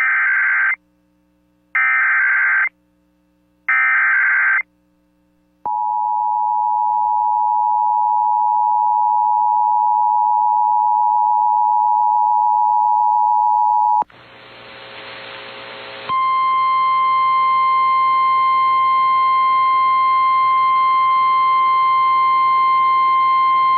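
Emergency Alert System broadcast tones for a severe thunderstorm warning: three short bursts of screeching SAME header data, then the two-tone EAS attention signal held steadily for about eight seconds. After about two seconds of radio hiss, a single steady alert tone starts over the hiss and runs on.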